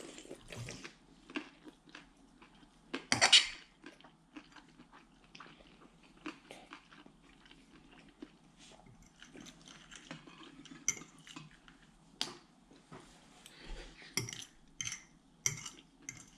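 A metal fork clicks and scrapes against a plate as it cuts pieces off a cake of fried jjajang noodles, in scattered short strokes. The loudest comes about three seconds in, and there is a cluster of sharper clicks toward the end, with chewing in between.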